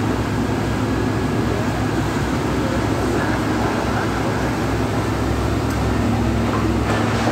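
Steady low rumble of idling vehicle engines and street noise, with a constant hum underneath.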